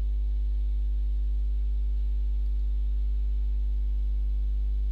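Steady electrical mains hum in the recording: a deep, unchanging drone with a ladder of higher overtones.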